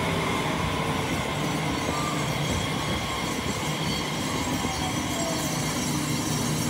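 A JR Kyushu electric multiple-unit train rolling slowly along the platform, with steady wheel and running noise and a faint whine that falls in pitch a couple of seconds in.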